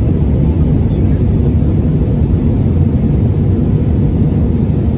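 Steady cabin noise inside an Airbus A319 in flight: an even, unbroken low rumble heard from a window seat.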